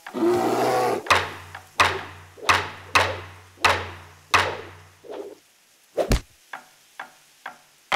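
Cartoon slapstick sound effects. A rushing whoosh comes first, then six sharp whacks about two-thirds of a second apart, each with a low ringing note under it. About six seconds in there is a heavier thud, followed by a few light taps.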